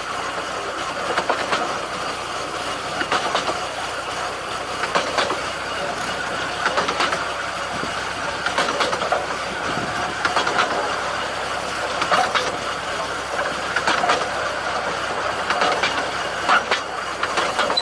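15-inch-gauge miniature railway carriage running along the track: a steady rolling noise, with a cluster of wheel clicks over the rail joints about every two seconds.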